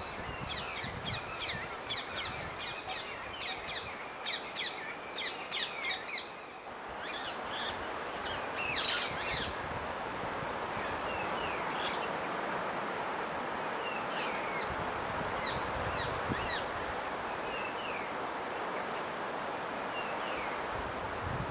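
Wild birds chirping and calling outdoors: a quick run of short repeated chirps for about the first six seconds, then scattered single calls, over a steady high insect drone.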